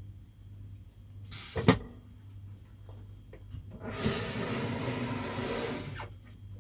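A sharp knock, then about two seconds of rushing noise that stops suddenly, over a steady low hum.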